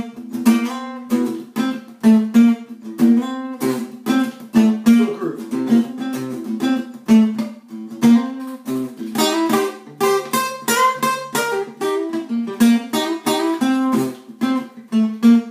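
Acoustic guitar playing a blues lick in C: a quick run of picked notes and short strummed chords that mix the minor and major third for a bluesy sound.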